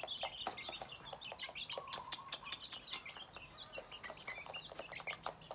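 Young chickens peeping over and over as they feed, with many sharp ticks of beaks pecking in a metal bowl, and one lower drawn-out call about two seconds in.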